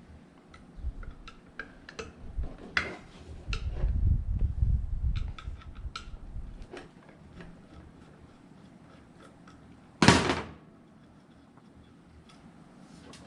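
Small clicks and taps of metal ceiling-fan parts being handled during disassembly, with a low rumbling handling noise for a couple of seconds, then one loud clunk about ten seconds in.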